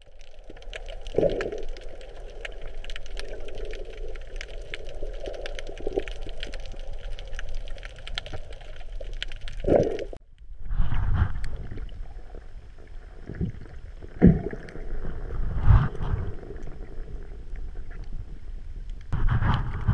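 Underwater sound picked up through a camera housing: a dense crackle of clicks over a rushing water noise. After a short break about ten seconds in, the water noise drops to a low rumble with several heavy whooshes of water surging past the housing.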